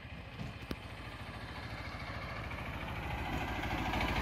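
A motor vehicle's engine running with an even, fast pulse, growing steadily louder. There is one sharp click a little under a second in.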